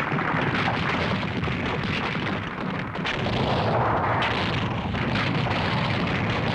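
Cartoon sound effect of a rockslide: boulders tumbling and crashing down in a steady rumbling din, with a few sharp knocks.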